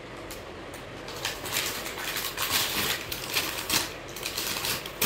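Plastic and paper courier packaging crinkling and rustling as a parcel is handled and unwrapped, in irregular bursts that start about a second in.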